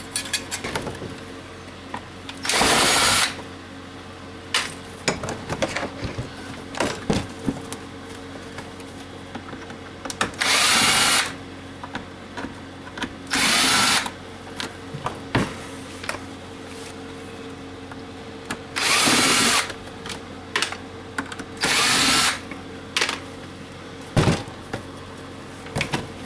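Power drill run in five short bursts of about a second each, driving out screws while a coffee maker is taken apart, with clicks and knocks of parts being handled in between.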